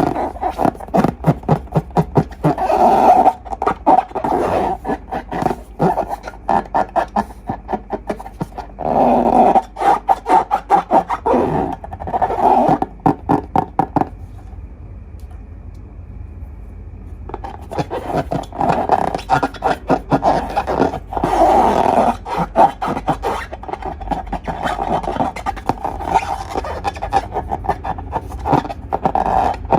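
Slime being squished and kneaded, with dense runs of sticky clicks and crackles that pause for about three seconds midway.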